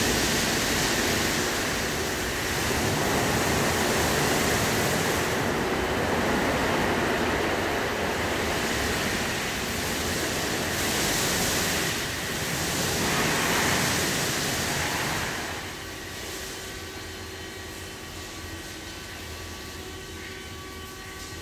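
Water spraying from the nozzles of a WashTec SoftCare2 Pro rollover car-wash gantry onto a car, a loud steady hiss that swells and eases. About fifteen seconds in the spray stops, leaving a quieter mechanical hum with steady tones from the machine's motors.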